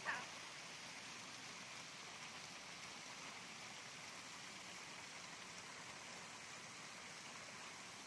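Faint, steady rush of water pouring from the outlet pipes of a concrete spillway onto the rocks of a stream.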